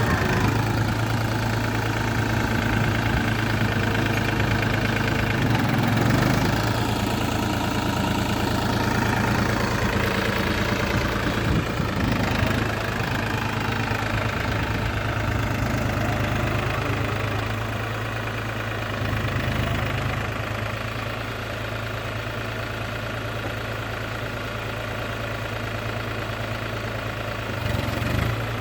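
New Holland 4710 tractor's diesel engine running at a steady speed, a little quieter in the second half.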